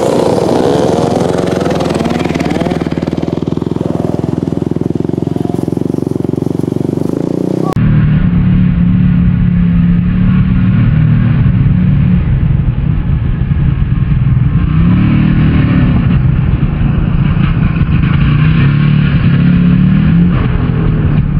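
Dirt bike engines running and revving close by. About eight seconds in the sound changes abruptly to a duller, steadier engine drone, with a few short rises and falls in revs.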